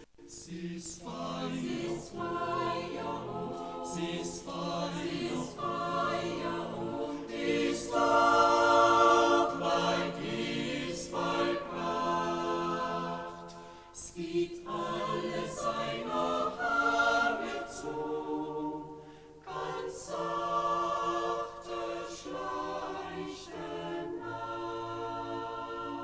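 A choir singing a cappella, several voices holding long notes in slow phrases with short pauses between them.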